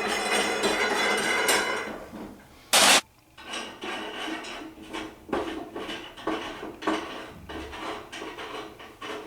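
Background music for about the first two seconds, then a short loud noise burst about three seconds in. After that come irregular metallic clicks and scrapes of a 17mm spanner working a nut off the bottom bolt of a vending tower.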